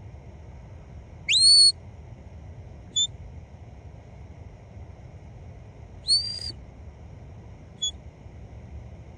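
Four high, loud whistles: one sliding up and then held briefly about a second in, a short pip, another short held whistle about six seconds in, and a last short pip near the end, over a steady low background rumble.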